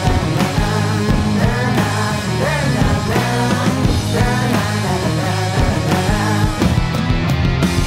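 Studio recording of a rock band playing full out: drum kit, electric bass and electric guitar, with drum hits driving a steady beat.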